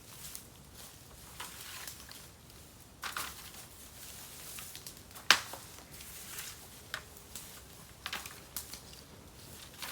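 Burning bamboo crackling on an open fire: irregular sharp pops over a soft hiss, with one much louder crack about halfway through.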